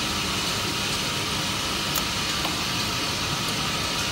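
Steady hum and hiss of running workshop machinery, with a light click about two seconds in.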